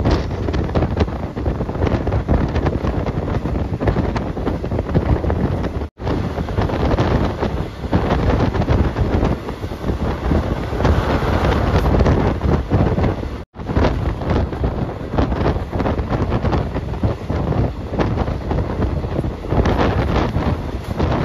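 Heavy wind buffeting the microphone over the rumble of a moving vehicle, cut off for an instant twice.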